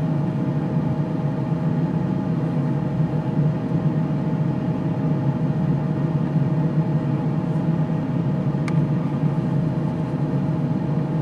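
Steady low mechanical hum with a thin steady whine above it, unchanging throughout; one short click late on.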